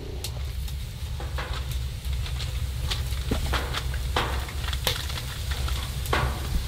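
Steak sizzling in a hot cast-iron skillet on a woodstove, with several sharp crinkles from a plastic zip-top bag being handled.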